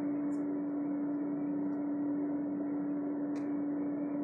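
Steady mechanical hum: one constant low tone over an even hiss, unchanging throughout, with a faint brief tick about three seconds in.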